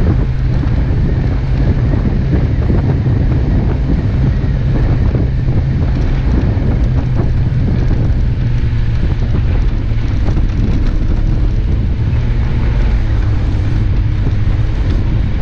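Off-road 4x4 driving along a snow-covered track, heard from a camera mounted on its hood: a steady low rumble of engine and tyres, with wind buffeting the microphone.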